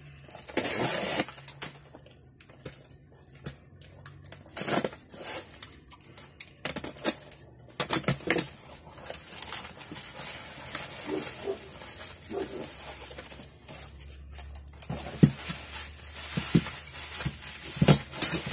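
A parcel being unwrapped by hand: packaging rustling and tearing in irregular bursts, with scattered clicks and knocks and a few short squeaks.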